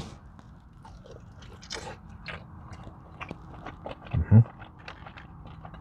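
A person biting into and chewing chicken wings close to the microphone: a scatter of short wet clicks and crackles from the mouth.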